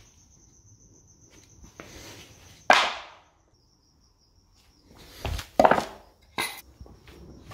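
Plywood pieces knocking against each other and a hard surface as they are handled and set down: one sharp knock about three seconds in, then a few more knocks near the end.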